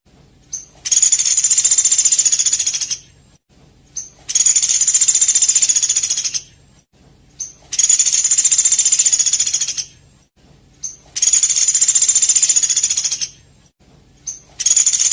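A small songbird's rapid, high-pitched trill, each about two seconds long and led by a short single note, repeated four times at even intervals of roughly three and a half seconds, with a fifth starting near the end. It is a looped song recording used as masteran to teach caged birds.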